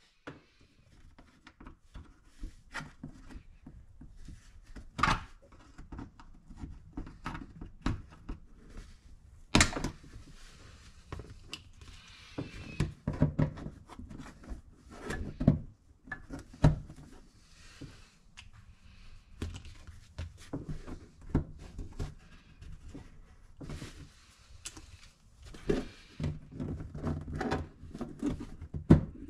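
Irregular clicks, knocks and thunks of hand work on plastic body-panel fasteners: push pins being pulled and clips fitted into the panel behind the seats of a side-by-side.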